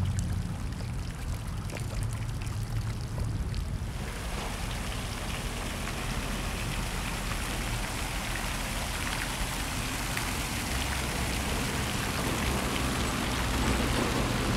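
Water running steadily from a fountain, coming up about four seconds in, over a low rumble.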